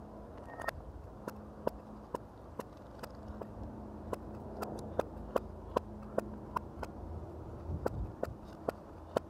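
Sharp, irregular clicks and taps, one every half second or so, of a metal tool working into a frozen water-balloon ice ball, over a low steady hum.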